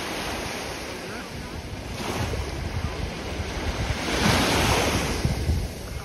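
Small waves washing onto a sandy beach, with wind buffeting the microphone. The wash swells about two seconds in and is loudest around four to five seconds in.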